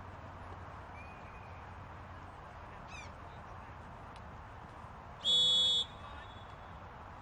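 A referee's whistle, one short, sharp blast of a bit over half a second about five seconds in, signalling the kick to be taken. Faint outdoor background noise lies under it.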